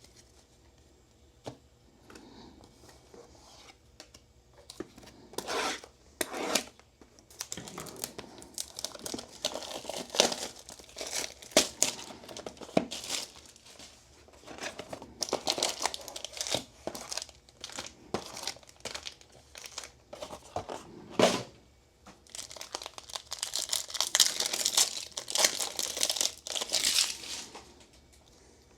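Trading card packaging being torn open and crinkled: wrappers ripped and handled in irregular crackling bursts, busiest near the end.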